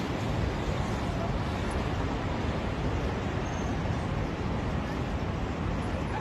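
Steady low rumble of road traffic with a hiss over it, even throughout.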